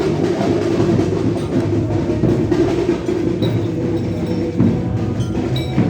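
Music with drums and percussion, playing loud and continuous with frequent sharp beats.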